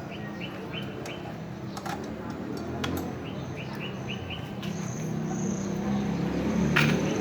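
A bird chirps in quick runs of short high chirps, three times, over a low engine hum that grows louder near the end.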